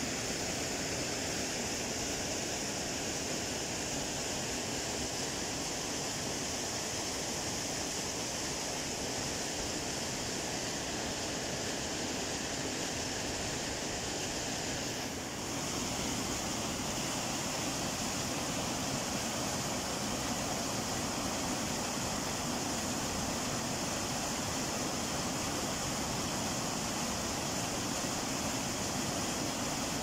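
Steady rushing of river water over rocks in shallow rapids. About halfway through, the sound dips briefly and gives way to the heavier, steady splashing of a small waterfall pouring over a rocky ledge into the river.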